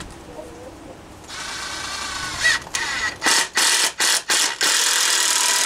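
Power drill driving a screw into a wooden 2x4. It starts with a steady whir about a second in, then runs in several short stop-start pulses of the trigger and ends on a longer run.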